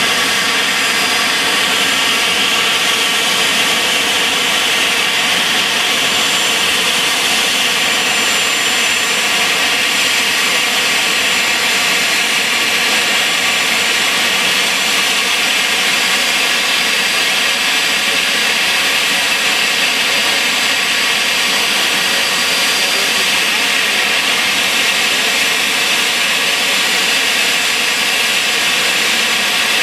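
The GE CF34-10E7 turbofan engines of an Embraer 195 running at low power as the jet taxis slowly up to its stand: a loud, steady jet whine and rush that holds unchanged throughout.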